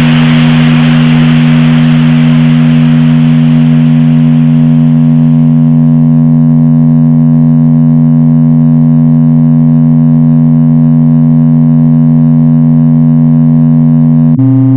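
Synthesized drone of two loud, steady low tones over a hiss that fades away during the first several seconds; just before the end the tones briefly change pitch and then cut off abruptly.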